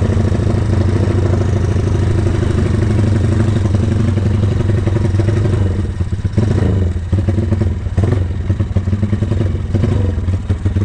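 Honda Tiger single-cylinder engine running through a CJDW aftermarket racing muffler, steady at first, then blipped briefly about six seconds in, after which it runs unevenly.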